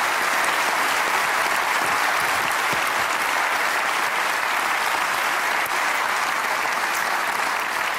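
Studio audience applauding, a steady clapping that eases off slightly near the end.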